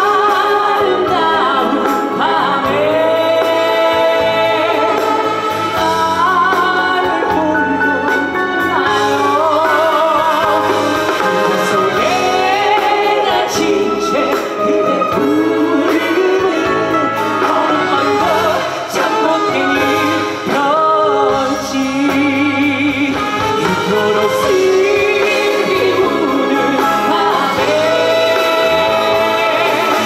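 A male trot singer singing a song live into a microphone over a band with acoustic guitar.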